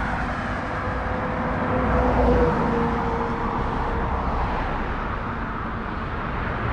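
A motor vehicle passing by, heard as a steady engine-and-tyre hum over outdoor background noise. It grows louder about two seconds in, then drops slightly in pitch as it goes past.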